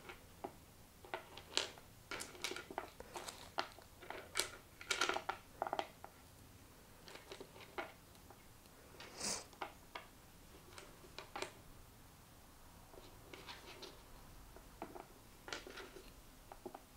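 Wooden fish-shaped game tokens being picked from a pile and set down on a cloth game board: irregular small clicks and taps, busiest in the first half and sparser later, with one brief swish about nine seconds in.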